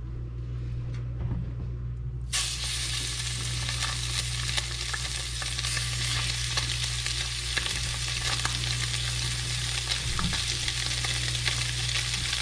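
Seasoned fish fillets going into hot oil in a cast iron skillet: a sizzle starts suddenly a little over two seconds in and runs on steadily with scattered pops. A low steady hum sits underneath.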